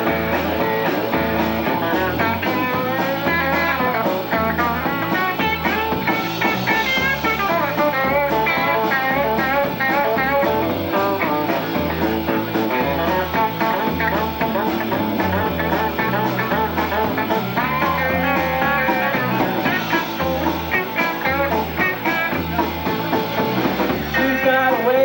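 Live rock-and-roll band playing an instrumental break: a guitar lead over a steady stepping bass line.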